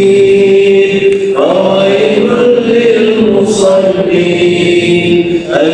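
A man chants Quranic recitation into a microphone in long, drawn-out melodic notes. The pitch glides up to a higher held note about a second and a half in, and slides again near the end.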